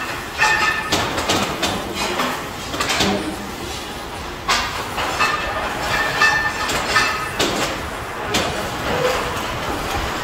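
Metal workshop noise: irregular metallic clanks and knocks, some with short high-pitched ringing or squealing, over a steady din.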